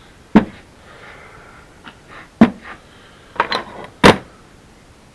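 Steel lathe chuck jaws handled and set down on a hard surface: three sharp metal knocks about two seconds apart, with lighter clinks between them.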